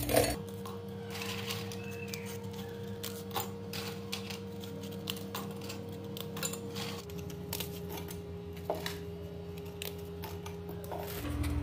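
Biscuits snapped by hand and dropped into a steel mixer-grinder jar: irregular crisp snaps and light clinks against the metal. Under them, soft background music of held notes, which shifts to a lower note about seven seconds in.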